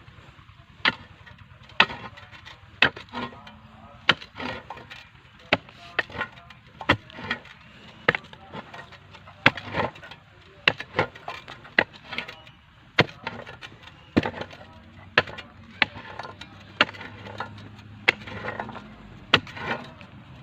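A digging tool striking the ground over and over, roughly once a second, as a small hole is dug to bury a dead bird.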